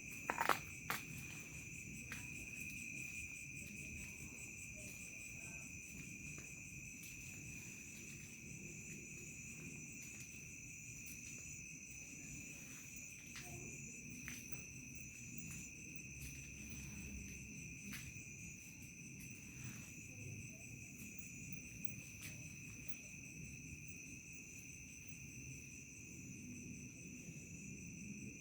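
A steady chorus of crickets chirring in two pitches, one lower and one higher, over a low background rumble. A few sharp clicks come in the first second.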